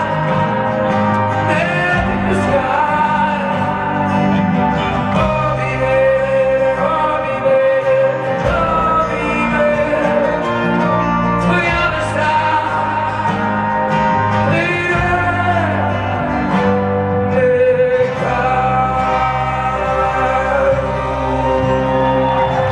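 A rock band playing live, a male lead vocal singing a slow song over acoustic guitar, bass and drums, heard through an arena PA from within the audience.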